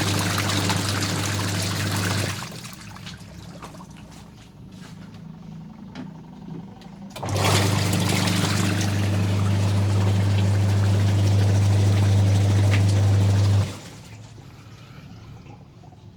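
Twin-tub washing machine's wash motor running with water churning in the tub: a steady hum with a splashing wash of water. It stops about two seconds in, starts again about seven seconds in, and cuts off sharply near fourteen seconds.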